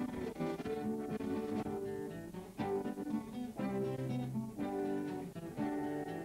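Acoustic string-band music with no singing: strummed and picked acoustic guitars over a bass line, with a fiddle.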